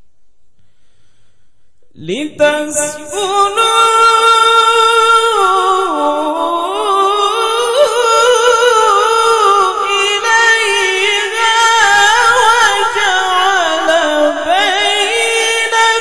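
A man reciting the Qur'an in the melodic tilawah style into a microphone. His voice comes in about two seconds in with an upward swoop, then holds long, high lines with wavering ornaments.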